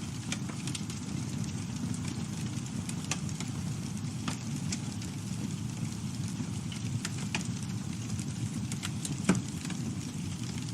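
Campfire burning: a steady low rumble of flames with scattered sharp crackles and pops of burning wood, one louder pop about nine seconds in.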